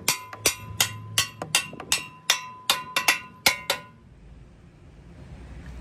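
Hand hammer striking the steel pin and brackets of a tractor front-blade mount: a rapid run of ringing metal-on-metal blows, about three a second, that stops about two-thirds of the way through.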